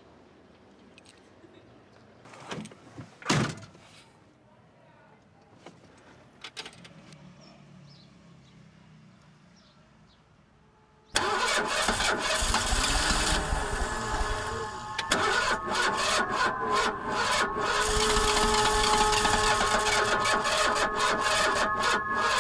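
A classic car's engine starting abruptly about eleven seconds in and then running loudly. Before that it is faint, with a couple of short knocks.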